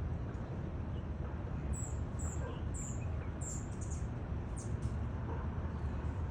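A small bird chirping: short, high chirps, several in a row through the middle, over a steady low background rumble.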